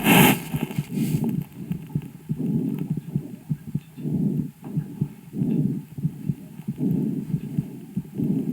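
A calf's breath sounds picked up by a stethoscope microphone pressed to the right chest: low, muffled swells about every second and a half, with faint clicks between them. There is a brief rustle of contact noise at the start. The calf is ill, with a lesion found only in its right lung by ultrasound.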